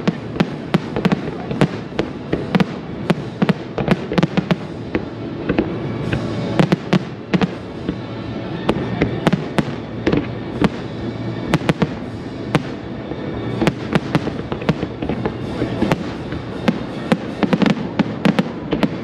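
Aerial firework shells bursting in a rapid, irregular string of sharp bangs, with music playing underneath.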